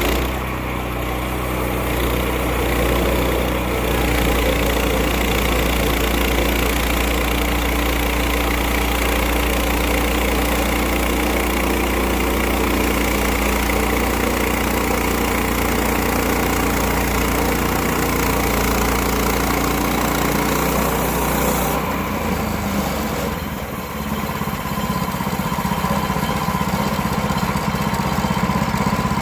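Engine of a Woodland Mills band sawmill running steadily. About two-thirds of the way through, the sound changes: the higher hiss drops away and the low hum shifts.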